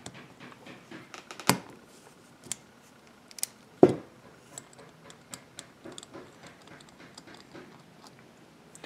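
Light clicks and taps of a small socket ratchet and metal carburetor parts being handled while the float valve seat is unscrewed from a Walbro WF-7 carburetor. Two sharper knocks stand out, about one and a half and four seconds in.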